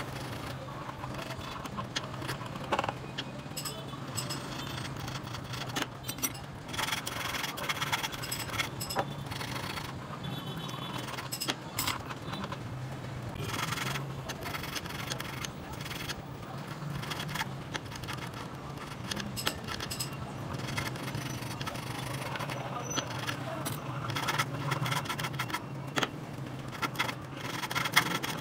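A small hand file rasping on a tiny 18k gold earring held against a wooden bench pin, in short irregular strokes with small metallic clicks as the piece is turned. A steady low hum runs underneath.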